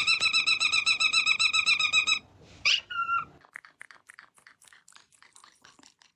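Parrot calling in a fast run of short repeated notes for about two seconds, then a brief single call, then a string of quieter clicks.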